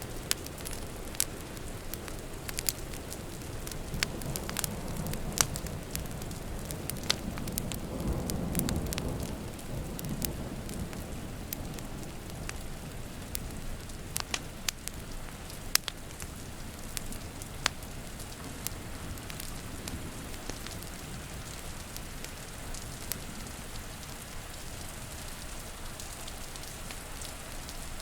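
Wood fire crackling with sharp pops over steady rain, with a low rumble of distant thunder swelling and fading in the first half.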